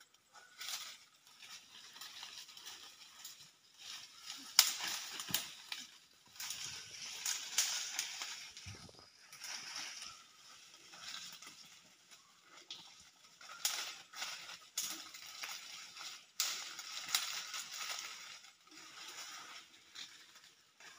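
A small open fire of dry leaves and twigs crackling and snapping, with rustling as dry leaves are handled and piled on; the snaps come in irregular spurts.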